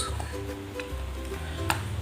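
Background music with sustained notes over a steady bass, and one sharp click near the end.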